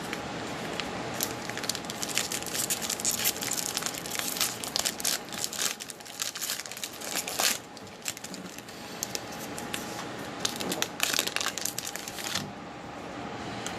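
Foil wrapper of a Score football trading-card fat pack crinkling and tearing as the pack is opened by hand, a dense run of crackles that stops about twelve seconds in.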